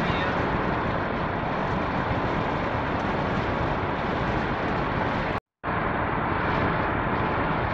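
Steady road, tyre and engine noise inside the cab of a 2014 Ford Econoline E-250 van driving at highway speed. A short dropout to silence comes about two-thirds of the way through.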